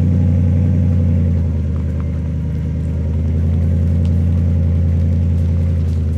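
Ford F-350 pickup's engine running with a steady low drone while it pulls a stalled pickup truck on a taut tow strap.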